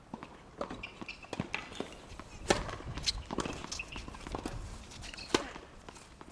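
Tennis rally on a hard court: sharp racket-on-ball hits, the loudest about two and a half seconds in and again near five and a half seconds, with footsteps and shoe scuffs on the court between them.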